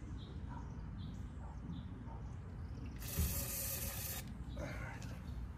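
Aerosol carburetor cleaner sprayed in one hissing burst of about a second, a little past halfway, followed by a shorter hiss, used as a starting aid for a mower engine with a gummed-up carburetor.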